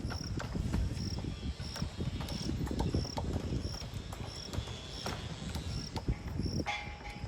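Construction-site ambience: a steady low rumble with scattered knocks, under a short high chirp that repeats about every two-thirds of a second. A brief pitched tone sounds near the end.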